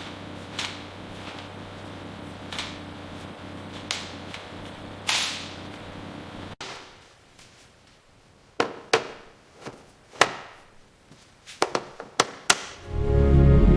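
Sharp metallic clicks and taps of hand tools and parts being fitted, over a steady machine hum. The hum cuts off abruptly about six and a half seconds in, leaving scattered sharp clicks, and music starts near the end.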